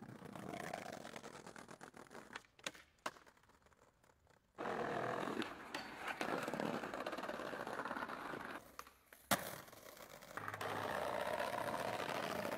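Skateboard wheels rolling over paving blocks in several stretches, broken by sharp clacks of the board: a few quick clicks about two and a half seconds in and one sharp crack of a pop or landing near the nine-second mark.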